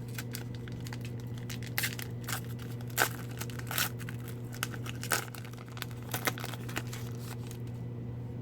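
Hockey card pack wrapper being torn open and crinkled: irregular crackles, loudest around the middle, over a steady low hum.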